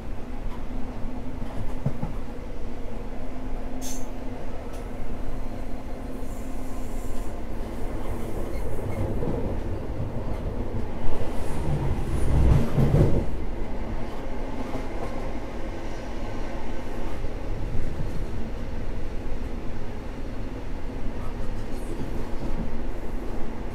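High Speed Train running along the line: a steady rumble of wheels on rail, swelling into a louder rush for a couple of seconds about eleven seconds in, with one short click about four seconds in.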